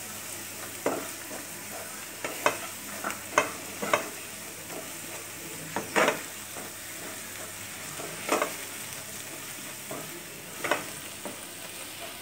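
Wooden spatula stirring onions and capsicum in a thick chilli sauce in a kadhai. Irregular scrapes and knocks of the spatula against the pan, over a steady sizzle.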